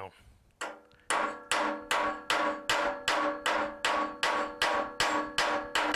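Hammer peening a steel rivet cold on a railroad-track anvil: about fourteen steady blows, some two and a half a second, each ringing metallically. The rivet is being headed without heat or a rivet set.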